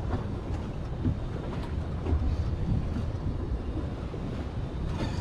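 Steady low rumble of wind buffeting the microphone on an open boat deck, with no distinct sharp sounds.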